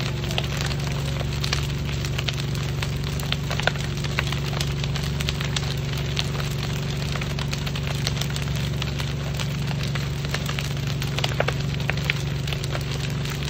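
A fire crackling with irregular sharp pops over a steady low engine drone.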